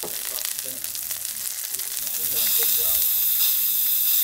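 Quail searing in a cast-iron skillet, sizzling steadily. About two and a half seconds in, a louder, steadier hiss takes over.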